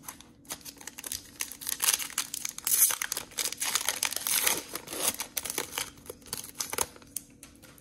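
Foil wrapper of a 2021 Panini Prizm Draft Picks football card pack crinkling and tearing as it is handled and opened: a dense run of crackles that thins out near the end.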